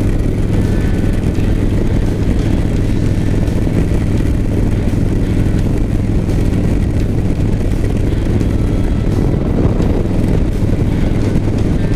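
V-twin cruiser motorcycle engine running at a steady road speed, its low note unchanged throughout, under rushing wind and tyre noise on a rain-wet road.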